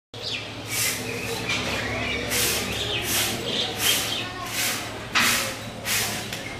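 Irregular short swishing or scraping strokes, several a few seconds apart, over a low steady hum, with birds chirping and cooing faintly.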